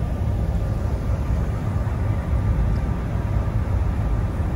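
Ferry underway: a steady low rumble of its engines mixed with wind across the open deck, with a faint steady whine above it.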